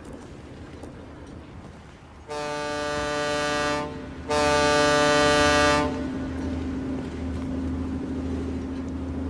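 A boat's horn gives two long blasts, the second louder, over a steady low engine drone.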